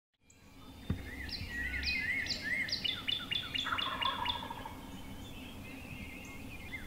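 Songbirds singing in quick, overlapping chirps and slurred notes. The song fades in at the start and thins out after about five seconds.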